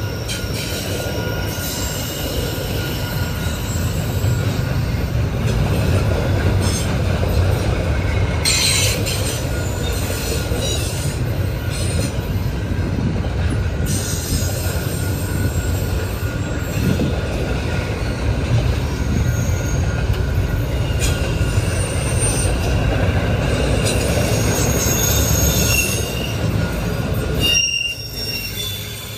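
Double-stack intermodal freight cars of a CN train rolling past: a steady rumble of wheels on rail with thin, high-pitched wheel squeal over it. The sound drops away sharply near the end.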